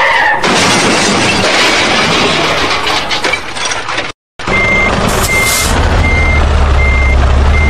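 A loud rushing, rumbling noise, cut off briefly about four seconds in; then a heavy vehicle's reversing alarm beeps five times, about once every three quarters of a second, over a low steady engine rumble.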